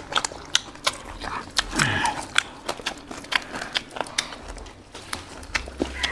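Fresh herb and lettuce leaves crackling and rustling as they are folded by hand around pieces of boiled pork, with chewing and small mouth clicks. About two seconds in there is a brief vocal sound that falls in pitch.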